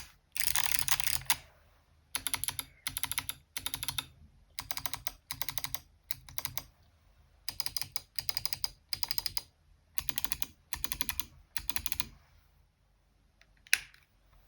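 Typing on a mechanical keyboard with Kailh Box Summer clicky switches: a fast run of crisp clicking keystrokes, then short bursts of clicks in quick groups. After a pause near the end comes one louder sharp click.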